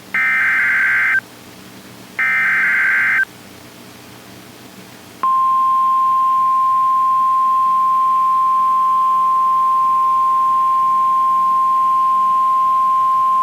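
Emergency Alert System SAME header: the last two of three short bursts of warbling digital data tones, each about a second long and a second apart. About five seconds in comes the steady single-pitch 1050 Hz NOAA Weather Radio warning alarm tone, held to the end, which signals that a warning message follows.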